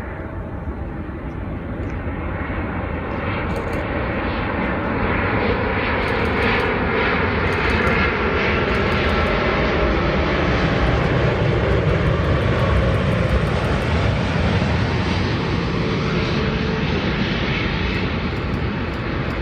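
Jet airliner passing low on its landing approach. The engine noise swells to its loudest a little past halfway, with a pitch that drops as it goes by, then begins to fade.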